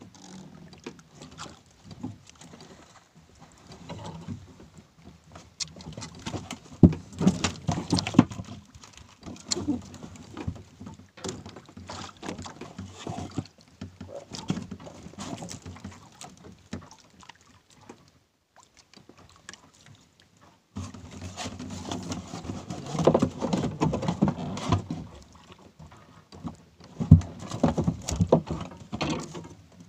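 Irregular knocks, clatter and rustling as a person kneels on a small boat's deck and handles a snagged nylon fishing line, with louder bursts about a quarter of the way in and again near the end.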